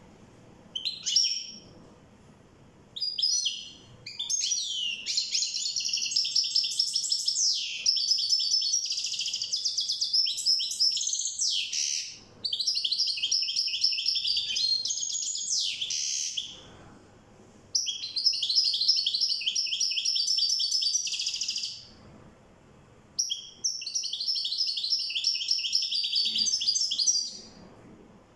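European goldfinch singing: long bouts of fast, high twittering song with quick trills and sliding notes, each run lasting several seconds and broken by short pauses of a second or so.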